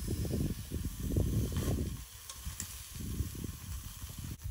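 A thick slab of raw meat sizzling and hissing on the hot grate of a small charcoal grill, just laid on to sear. Irregular low rumbling gusts, strongest in the first two seconds, sit under the sizzle.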